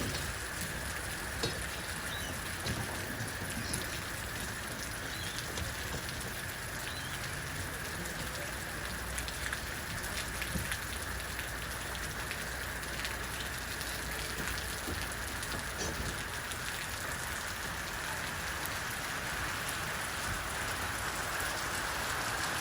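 Steady hiss of rain, dotted with many small drop ticks, over a low rumble.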